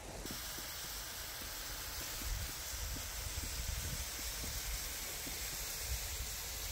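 Steady, fairly faint hiss of a gas grill with a pan of savoy cabbage rolls simmering in their juices, with light scattered crackles.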